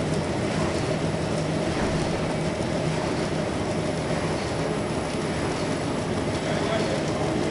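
YC520RY paper-cup printing machine running at speed, the paper web feeding through its rollers: a loud, steady machine noise with a constant hum.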